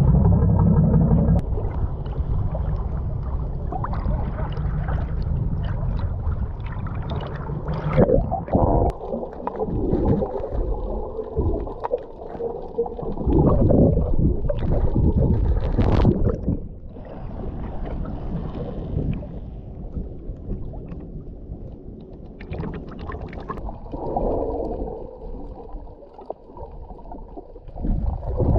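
Sea water sloshing and gurgling around a camera at and just below the surface, heard muffled with a low rumble and several sharp splashes.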